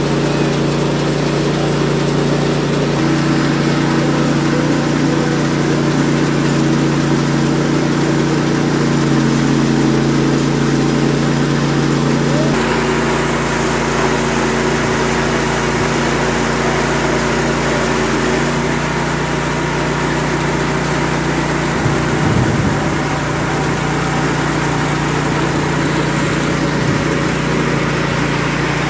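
Rice Mill Mate mini rice milling machine running steadily under load as paddy is milled, a loud, even machine drone that shifts abruptly in tone about halfway through.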